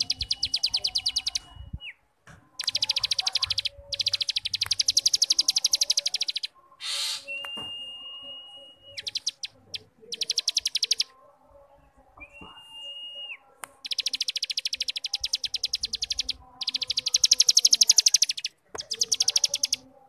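Cigun (a prinia) singing its 'ngebrem' song: fast buzzing trills of about 17 notes a second, repeated in runs of one to two seconds. Between the runs come thin, steady, high whistles held for a second or two, each ending in a quick drop.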